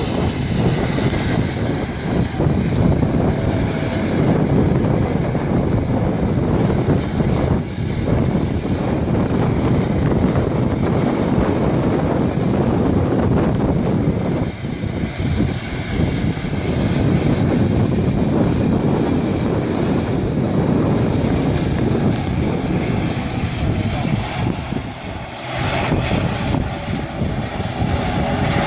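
Turboprop airplane engines and propellers running loud and steady as a dense rumble. The sound dips briefly about 25 seconds in, then picks up again.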